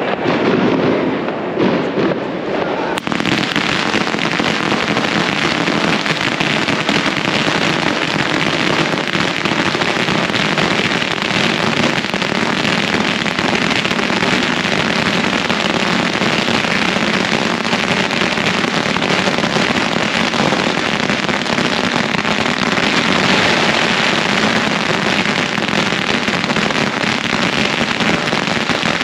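Fireworks and firecrackers going off in a dense, unbroken crackle of many overlapping pops, which turns sharper and brighter suddenly about three seconds in.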